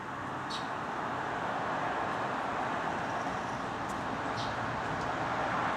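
Steady outdoor rushing noise, like distant traffic or rain, with two short high chirps.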